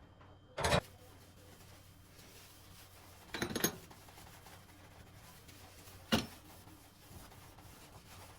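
Three short knocks and clatters of household objects being handled and set down, the middle one a brief run of clinks.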